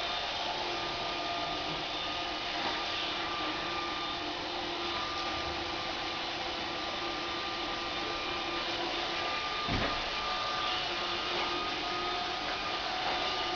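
AMI BB-8 robot vacuum running steadily, an even motor hum with a few steady whining tones, and a single soft knock about ten seconds in.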